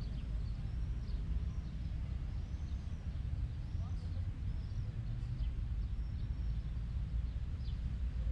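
Wind rumbling on the microphone, with small birds giving faint, short high chirps now and then.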